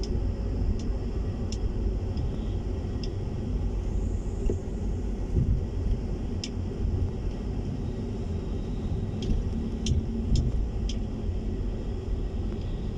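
Low, steady rumble of a car driving over a rough, patched concrete road, with scattered light ticks.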